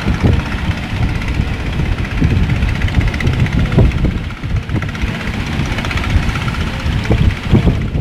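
Strong wind buffeting the microphone: a loud, uneven low rumble that surges and dips in gusts.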